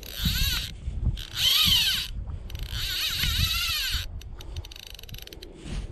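Fly reel's click-and-pawl ratchet buzzing in four bursts, its pitch rising and falling with the speed of the spool, then slowing to separate clicks near the end, as a hooked fish is played. Wind rumbles on the microphone underneath.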